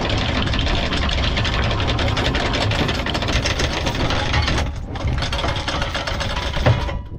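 Anchor windlass hauling in the anchor chain, a loud, dense mechanical clatter over the hum of the boat's engine, with a brief dip about two-thirds through, stopping abruptly near the end.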